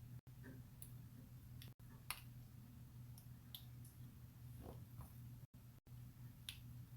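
Faint, scattered clicks of small metal parts of a shotgun trigger assembly being handled and fitted, the sharpest about two seconds in, over a steady low hum. The audio cuts out completely for an instant several times.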